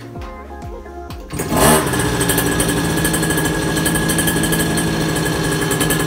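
Music with a beat for about the first second and a half. Then the mini bike's small engine, fitted with a new carburetor, starts with a quick rise in pitch and runs steadily.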